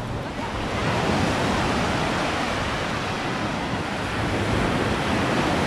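Gentle surf: small waves breaking and washing up onto a sandy beach in a steady wash that swells and eases.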